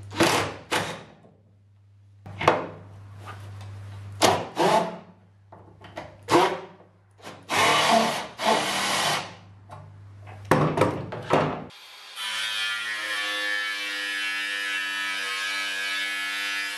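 Cordless impact driver running in short, irregular bursts against the hood's metal trim piece. About twelve seconds in, a different power tool starts and runs with a steady whine.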